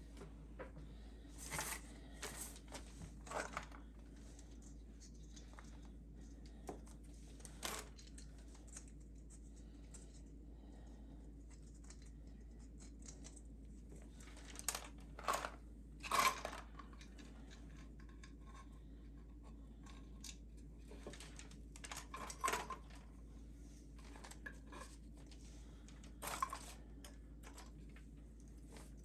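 Scattered short handling noises, rustling, crinkling and small clicks, a few louder ones in the middle, over a faint steady hum.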